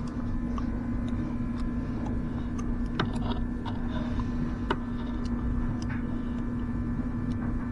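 Steady hum of a smoke machine's air pump running as it pushes smoke into the fuel vapour lines to find a small vacuum leak, with a few faint clicks.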